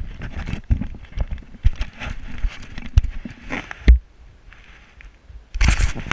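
Irregular knocks, clicks and rattles of a bicycle being ridden over a paved path, picked up by an action camera mounted on the handlebars. The strongest thump comes about four seconds in, and a short noisy rush follows near the end.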